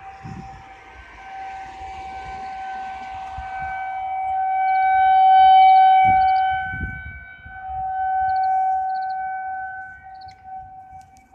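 A long siren-like wail held on one steady pitch, swelling to its loudest about halfway through, dipping briefly, then swelling again and fading near the end.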